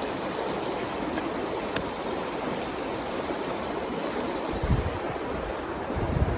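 River water flowing steadily, with one sharp click a little under two seconds in. From about four and a half seconds, wind buffets the microphone in low gusts.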